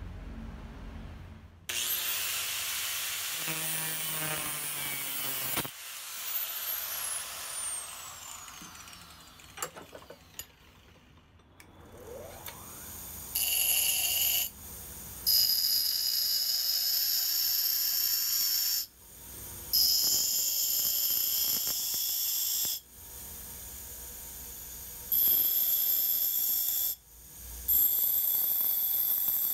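Bench grinder grinding the forged cobalt-steel drill bit down to shape, five passes of a few seconds each against the stone, with quieter motor running between them. Before that, a first spell of about four seconds of grinding stops suddenly, followed by a falling whine as a wheel runs down and, near the middle, a short rising whine as the grinder comes up to speed.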